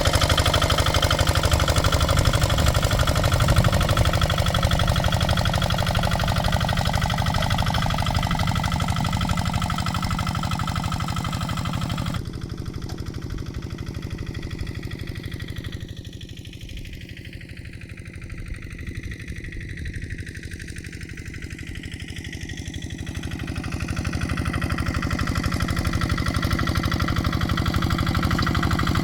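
Kubota RD65 DI single-cylinder diesel engine on a hand tractor, running steadily under work. The sound drops abruptly about twelve seconds in, stays fainter for a while, then grows louder again toward the end.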